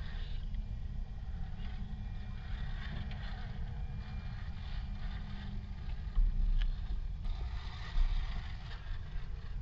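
Wind rumbling on the microphone, with the faint, intermittent whine of a radio-controlled rock crawler's electric motor and gears as it climbs over rock. Two louder low thumps or gusts come about six and eight seconds in.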